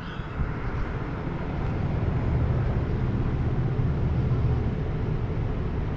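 Large vehicle's engine running close by, a low steady rumble that swells over the first couple of seconds and then holds.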